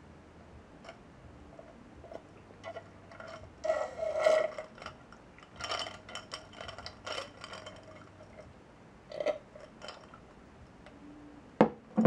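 Ice cubes clinking in a drinking glass, with sips and slurps of juice through a straw; a louder slurp about four seconds in. Near the end, two sharp knocks as a glass is set down on a table.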